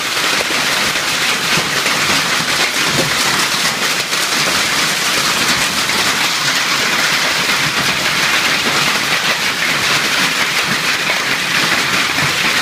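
Hail and rain pelting pavement and grass: a steady, dense rattle of countless small impacts.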